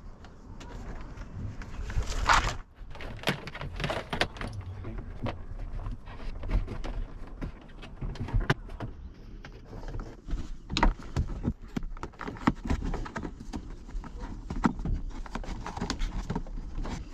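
Irregular clicks, knocks and rustling from hands working wiring and plastic interior trim inside a van.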